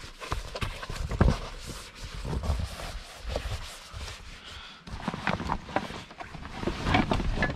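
Irregular knocks, thumps and rustling of camping gear being handled in the back of a car: a foam sleeping pad and bags shifted about. The loudest thump comes about a second in.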